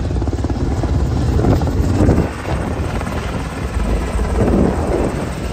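Military helicopter flying low overhead, its rotor beating in a rapid, steady chop.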